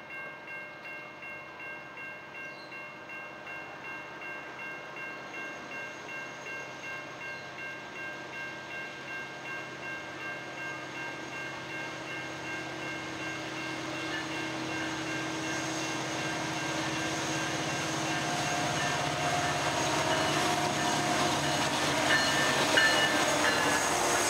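Level-crossing warning bell ringing steadily, about two strokes a second, while an approaching CN diesel freight led by an SD70M-2 and a C44-9W grows steadily louder. Its rumble swells until the locomotives pass close by at the end.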